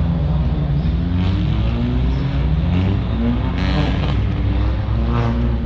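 Race car engines accelerating, their pitch climbing in repeated rises as they pull through the gears, over a steady low rumble.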